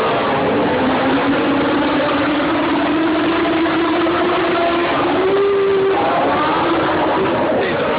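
Several dwarf race cars' engines running hard on the track at once. The loudest engine climbs slowly in pitch for about five seconds, then drops about six seconds in as it lifts off, while other engines rise and fall around it.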